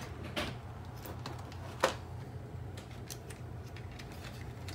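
Small clicks and rustling of wires being handled and pressed into the plastic chassis of a Shark robot vacuum, with one sharper plastic click a little under two seconds in, over a steady low hum.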